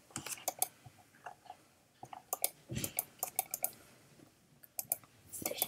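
Scattered light clicks and knocks of small things being handled, with a duller thump about three seconds in.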